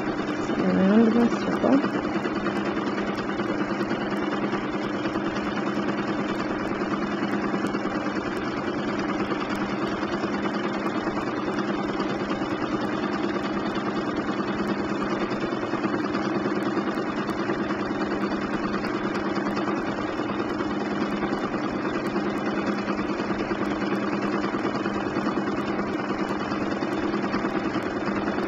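Bernina 1260 sewing machine running steadily at an even speed while free-motion quilting, its motor and needle going without a break. A brief rising sound is heard about a second in.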